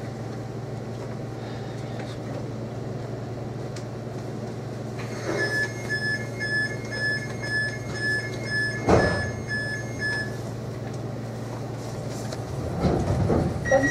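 Class 230 D-Train's Ford diesel engines idling in a steady low hum while it stands at a platform. About five seconds in, the door warning beeps sound about twice a second for some five seconds, with a single thud about nine seconds in as the doors shut. Near the end the engines rise in a louder rumble as the train starts to pull away.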